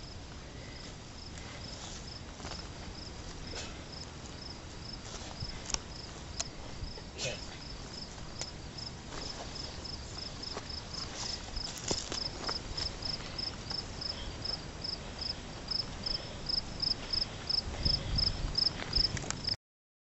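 An insect chirping in an even rhythm, high-pitched, about three chirps a second, growing louder toward the end. Scattered snaps and crunches of footsteps through brush sound underneath, and everything cuts off suddenly just before the end.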